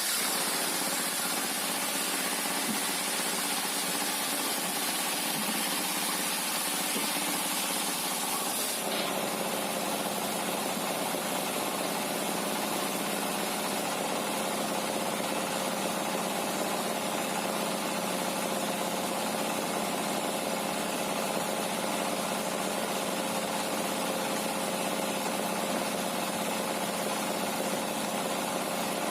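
Sawmill machinery running steadily with an even engine-like hum. A high hiss rides over it for about the first nine seconds, then stops abruptly.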